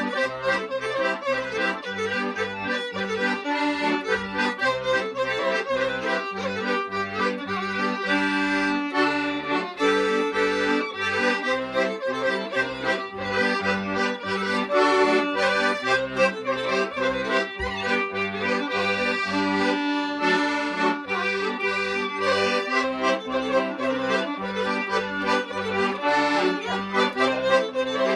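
Violin and piano accordion playing a traditional folk tune together, the accordion's bass notes keeping a steady beat of about two a second under the chords and melody.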